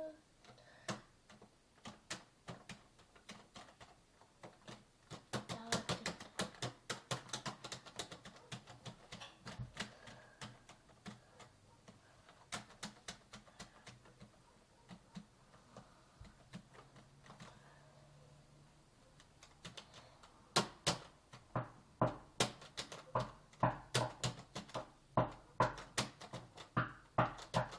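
Rapid knocking: series of light, sharp taps on a hard surface, several a second, coming in runs. The loudest and densest run starts about two-thirds of the way through.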